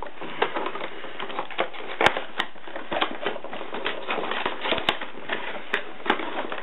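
Plastic and cardboard toy packaging being handled and cut with scissors: continuous crinkling and rustling broken by sharp clicks and snips, the loudest about two seconds in and near five seconds in.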